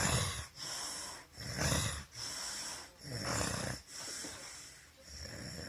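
Heavy snoring in a steady rhythm: a loud rasping snore about every second and a half, with a softer breath between each.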